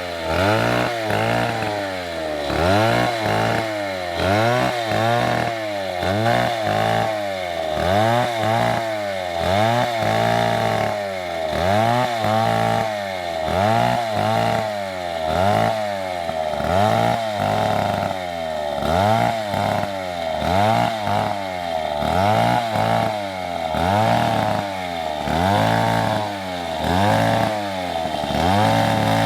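Two-stroke chainsaw running through a cut, its engine pitch rising and falling about once a second as the load comes on and off.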